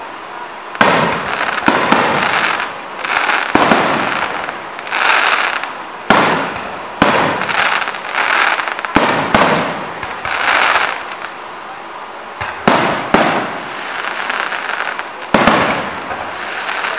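Aerial fireworks display: shells bursting with a sharp bang roughly every second, and the stars crackling and hissing between bangs, with a short lull a little past the middle.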